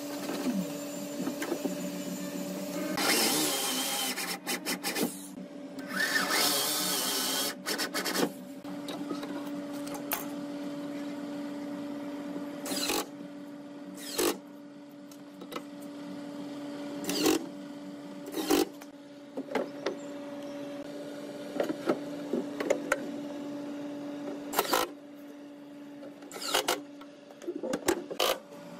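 Hand tools and a cordless drill-driver at work fitting cabinet hinges: two short runs of noisy driving early on, then a string of separate sharp taps and knocks, over a steady mechanical hum.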